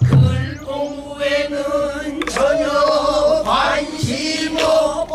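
Pansori singing: voices hold long, wavering notes of a danga, with a few sharp knocks in between.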